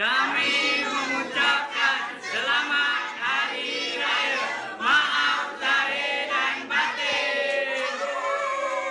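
A large group of people shouting and cheering together in unison, ending in one long drawn-out shout held from about two seconds before the end.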